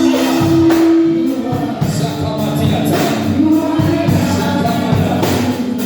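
Gospel worship song: voices singing long held notes over band accompaniment.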